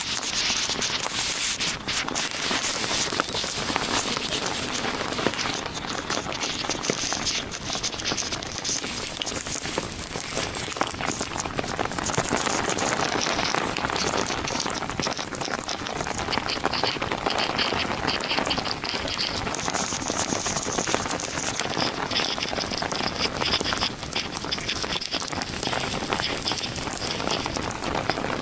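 Heavy monsoon rain falling, a dense, steady patter of drops hitting a surface.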